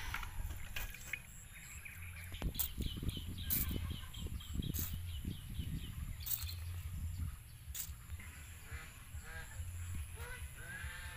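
Birds calling: a quick run of repeated high chirps, then from about two thirds of the way in a series of short honking calls, over a steady low rumble with a few sharp clicks.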